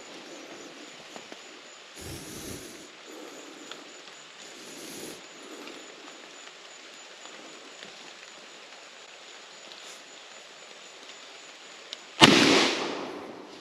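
A single shotgun shot about twelve seconds in: a sudden loud blast that dies away over about a second. Before it, two brief spells of faint rustling.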